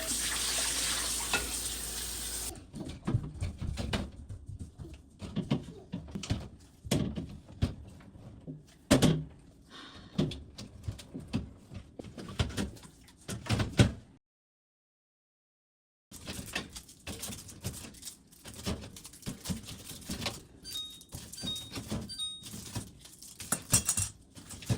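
Groceries and containers being put into a fridge: irregular knocks, clunks and clatters of items set on shelves and in drawers. A tap runs for the first couple of seconds, and the sound cuts out completely for about two seconds midway.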